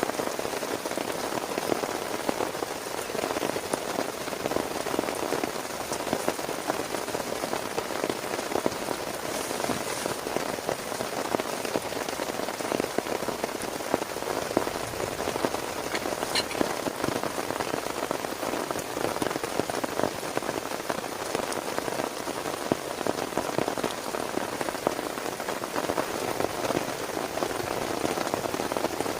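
Heavy rain falling steadily, a dense, even patter of many drops striking a surface.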